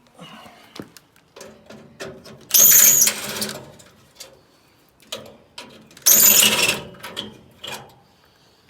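A cordless power driver spins briefly twice, each run about a second long with a high motor whine, backing out headlight retaining screws. Light clicks and knocks of handling metal parts come between the runs.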